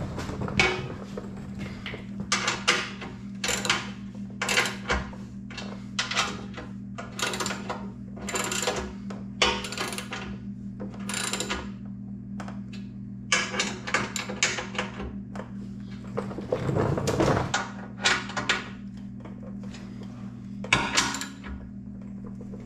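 Hand socket ratchet tightening skid plate bolts in short strokes. Each back-swing gives a brief burst of clicks, coming about once a second with a few pauses. A steady low hum runs underneath, and there is a short rustle of movement about three-quarters of the way through.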